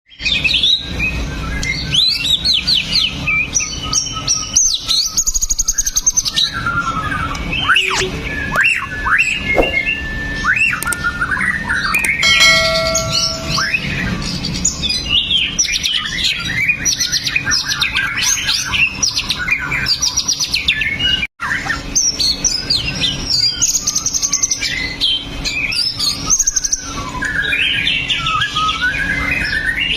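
White-rumped shama (murai batu) singing a continuous, varied run of rapid whistles and trills over a low steady hum. The song breaks off for an instant about two-thirds through.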